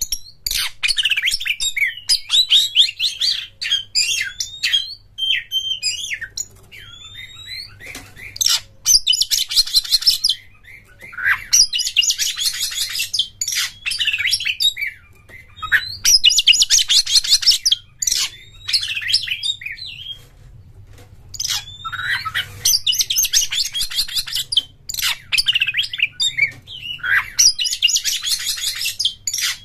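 Oriental magpie-robin singing a loud, varied song of whistles, sliding notes and short chips. Several times, the song breaks into dense, fast, rattling trill phrases about a second long.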